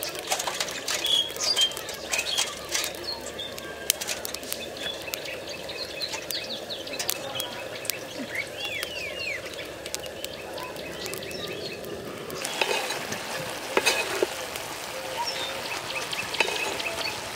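Small birds chirping and calling, over the crackle of a wood fire burning in a clay stove. Near the end come a few knocks of cookware as the pot is opened and stirred with a wooden spoon.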